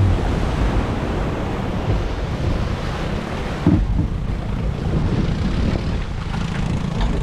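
Wind buffeting the microphone and water rushing past a speedboat under way through the surf, a steady loud rumble. There is a brief thump a little under four seconds in.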